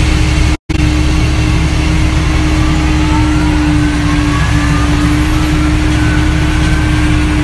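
Towbarless aircraft pushback tractor's engine running steadily under load while pushing an Airbus A320, a deep rumble with a steady hum and a faint whine slowly rising in pitch. The sound cuts out completely for a split second just after the start.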